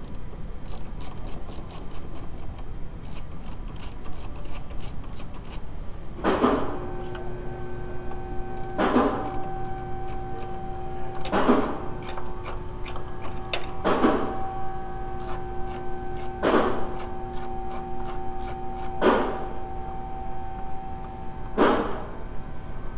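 Socket ratchet clicking in quick runs while it turns a bolt on the wiper linkage mount. From about six seconds in, a louder sweep recurs about every two and a half seconds over a held tone.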